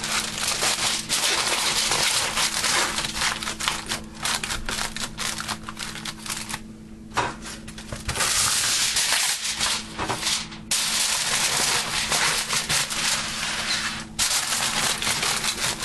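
Aluminium foil crinkling and crackling as it is pressed and crimped around the rim of a disposable aluminium pan. It goes on almost without a break, pausing for about half a second near the middle.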